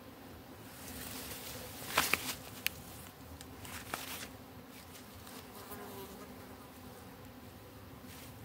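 A bee buzzing with a steady hum, the pitch wavering briefly about six seconds in as it moves. A few sharp clicks, the loudest sounds here, come around two seconds in and once more about four seconds in.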